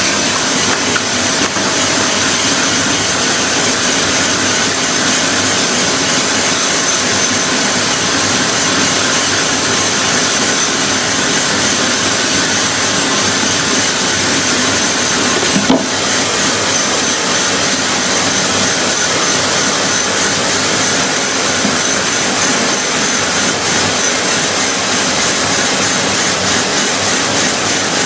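A machine running steadily and loudly, with a hiss and a faint high whine, and one short knock about halfway through.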